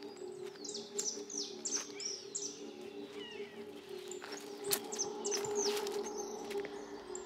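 Small birds chirping, many quick high notes that fall in pitch, over a steady low hum, with a few sharp clicks.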